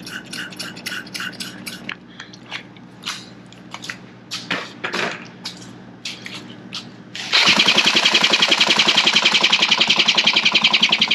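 Scattered clicks and taps of handling for about seven seconds, then an old two-stroke outboard motor, its broken pull starter bypassed, is spun over by a drill: a sudden, loud, fast and even pulsing of cranking, about nine beats a second, that does not catch and fire.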